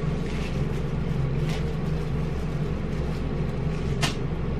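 A steady low hum fills the background, with brief mouth clicks from chewing: a soft one about one and a half seconds in and a sharper one near the end.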